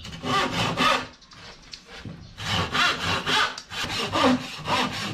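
Hand saw cutting phenolic board (film-faced plywood) with quick back-and-forth strokes: a short burst of strokes, a pause of about a second, then a steady run of about three strokes a second.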